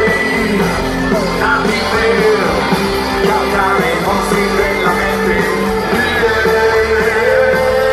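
Rock band playing live and loud, a male singer's voice over electric guitars, drums and keyboards, heard from within the audience.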